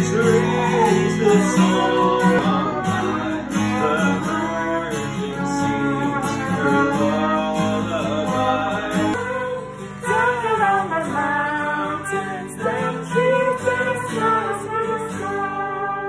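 Acoustic guitar strummed along with a trumpet playing a melody. The sound changes abruptly about nine seconds in.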